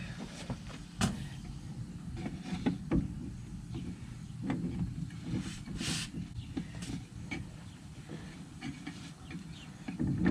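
Scattered light knocks and clicks of hand work on a hay baler over a low steady hum, with a brief hiss about six seconds in.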